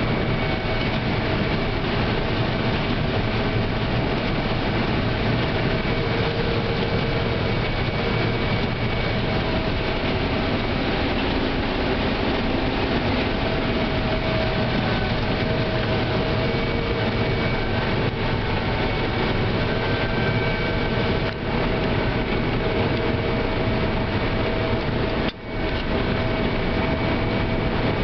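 Combine harvester running while harvesting corn, heard from inside the cab: a steady engine and machinery drone with several faint steady whines. The level dips twice for a moment near the end.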